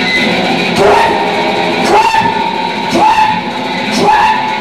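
Dean Playmate electric guitar through a small Crate amp playing a loud lead line: notes bent upward and held, repeating about once a second.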